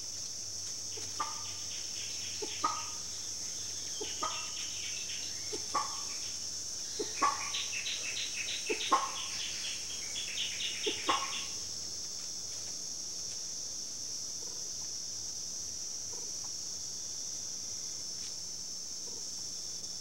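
Short clucking animal calls repeat about every second and a half, some in quick pairs, and stop about halfway through. Under them a steady high-pitched insect buzz runs throughout.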